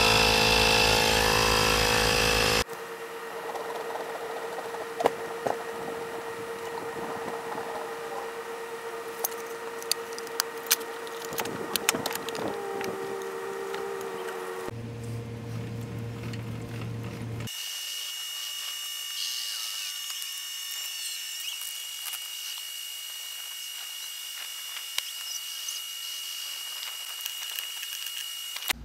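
A small cordless power tool runs steadily for about the first three seconds, working on a rusted trailer wheel to loosen it. After that, quieter scattered clicks and scrapes of hand work at the wheel.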